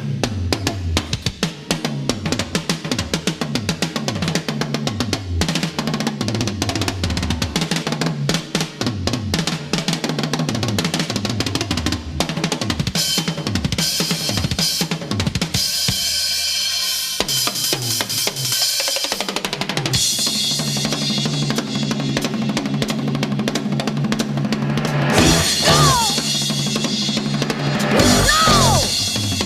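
Backing song with a driving drum kit, kick and snare keeping a steady beat. About halfway through the bass and drums drop away for a few seconds, then come back in.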